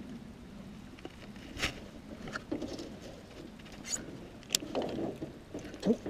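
Baitcasting reel and rod being handled in a small boat: a few sharp clicks and light knocks, with some short low sounds between them.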